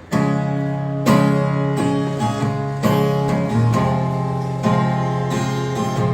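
Acoustic guitar strumming chords as an instrumental intro, a new chord struck about every second.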